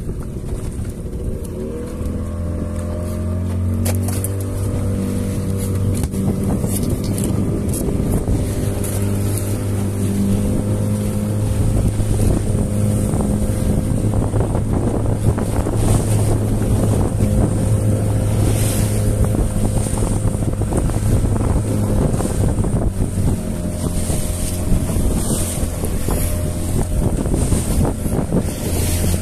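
A small fishing boat's outboard motor speeding up about two seconds in, then running steadily at speed, with wind buffeting the microphone.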